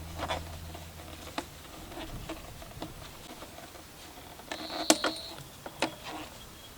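Scattered light clicks and taps of small hard objects being handled, with one sharp tap about five seconds in and a brief high steady tone around it.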